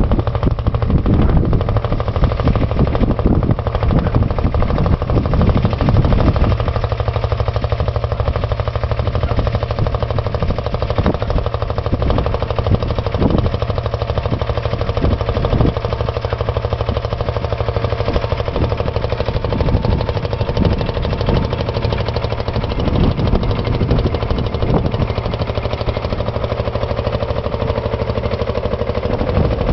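1949 Field Marshall Series 3 tractor's single-cylinder two-stroke diesel engine running steadily under ploughing load, an even, rapid thumping of its firing strokes.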